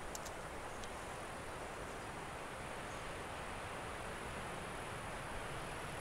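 Steady outdoor background hiss with no distinct source, with a few faint light ticks within the first second.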